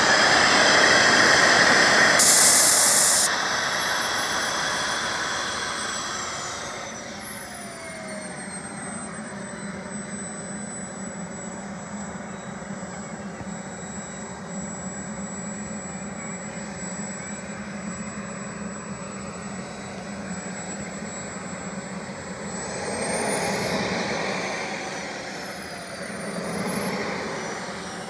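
Kingtech K-260 model jet turbine running: near full power at first with a loud high whine, throttled back about three seconds in so the whine falls and settles into a steady idle, then two brief throttle-ups near the end that raise the whine and then let it fall again.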